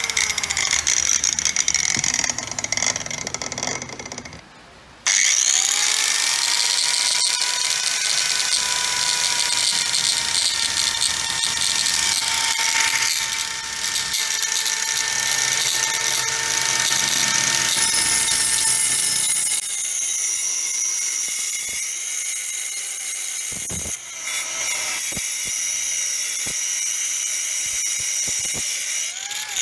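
Corded angle grinder converted to a circular saw, running through an added speed controller. Its motor whine falls in pitch over the first seconds and drops away briefly, then spins up to a steady whine that holds for about fifteen seconds. After that it turns to a thinner, hissy whine with a few sharp clicks, and spins up again near the end.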